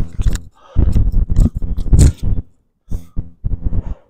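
Tennis rally: rackets striking the ball and footsteps on the court, over a dense low rumble on the microphone. The sharpest strike comes about two seconds in.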